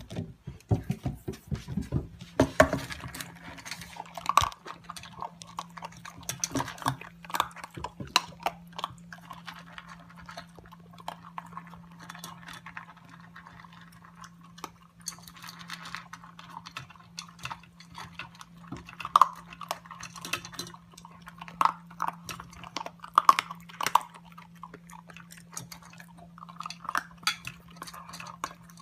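A dog eating from a bowl: irregular chewing and crunching with clinks and knocks of the bowl. A steady low hum starts a couple of seconds in.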